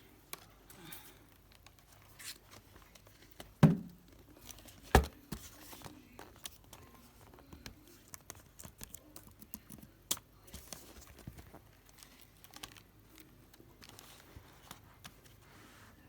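Hands working on a laptop being taken apart: scattered small plastic clicks and rustles, with two sharper, louder knocks about three and a half and five seconds in.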